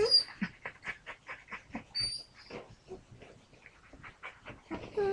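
Excited pet dog whimpering and whining in many short, quick sounds, with a thin high whine about two seconds in.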